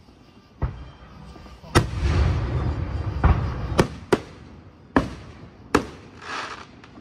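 Aerial fireworks shells bursting overhead: about seven sharp bangs spread irregularly, with a rolling rumble and crackle after the big burst a couple of seconds in, and a short hiss near the end.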